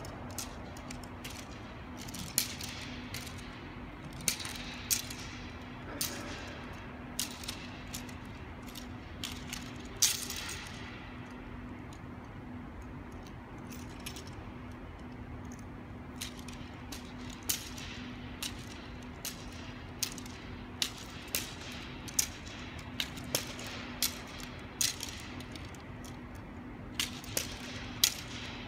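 A practice weapon being swung and handled, giving sharp clicks and knocks at irregular intervals, sometimes a few a second, over a steady low hum.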